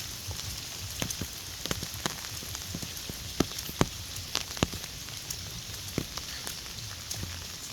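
Heavy rain falling in a steady hiss, with large drops landing irregularly in sharp, louder plinks on a hard surface.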